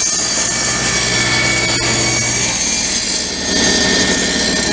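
Table saw crosscutting a two-inch-thick glued-up hardwood blank on a crosscut sled, the blade under load as the board is fed through. The sound changes about three and a half seconds in as the blade clears the wood.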